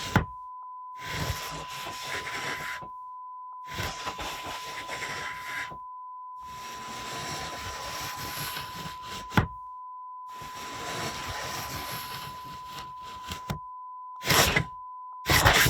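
Wood-and-paper fusuma sliding doors of a tenbukuro cupboard in an old Japanese house, slid open and shut several times with a scraping rub, and a sharp knock about nine seconds in as a door meets its frame. Near the end come shorter, louder slides. A steady beep tone runs underneath, the seller's watermark on the sample.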